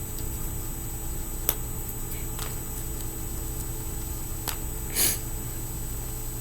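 A few small sharp clicks and one short scrape about five seconds in from fingerboard parts (trucks, screws and tools) being handled during assembly, over a steady background hum.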